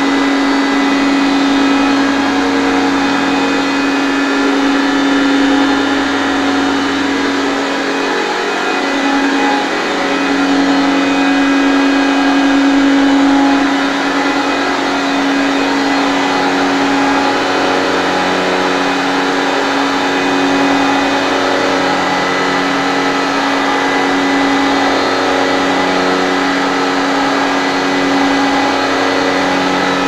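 ARES 100 home-type two-phase olive oil decanter centrifuge running steadily while processing olives: a constant mechanical hum and whine with a slow, even throb that rises and falls every few seconds.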